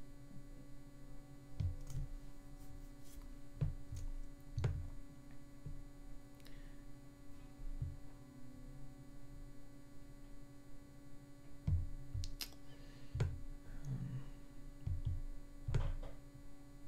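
Scattered clicks and soft knocks of a computer mouse being worked at a desk, at irregular intervals, over a steady electrical hum.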